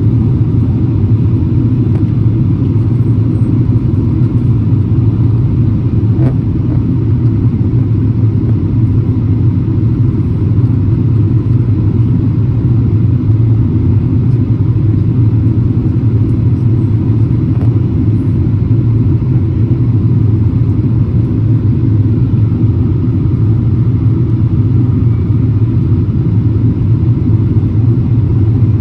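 Jet airliner cabin noise heard from a window seat: a loud, steady low rumble of engines and airflow, unchanging throughout.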